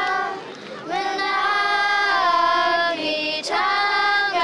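A group of children singing an action song together in long held notes, with short breaks about half a second in and again about three seconds in.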